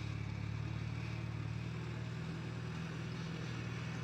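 An engine running steadily at a constant, low, even pitch.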